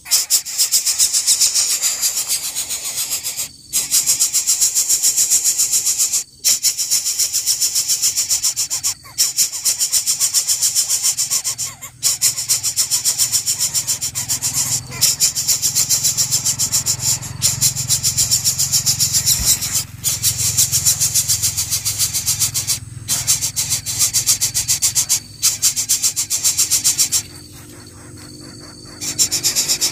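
Greater coucal nestlings making loud, rasping, buzzing begging calls at the nest, in long stretches broken by short pauses every two to three seconds, with a longer pause near the end.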